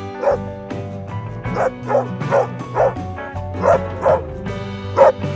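A dog barking repeatedly in short, separate barks, the loudest near the end, over steady background music.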